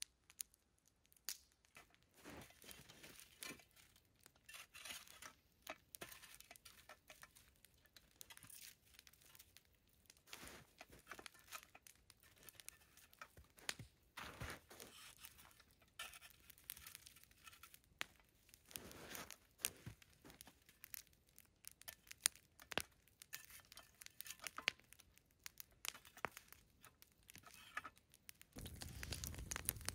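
Faint, scattered crinkling and rustling of an aluminium-foil Jiffy Pop popcorn pan being handled. A low, steady rush comes in near the end.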